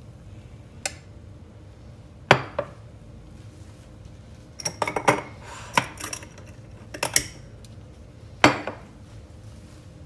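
Sharp clinks and knocks of kitchenware on a countertop: a stainless steel milk jug, a ceramic mug and a glass jar with a metal lid being set down and handled. About a dozen separate hits in small clusters, the loudest a little after 2 s and at about 8.5 s in, with a busy run of clinks in the middle while the jar is opened.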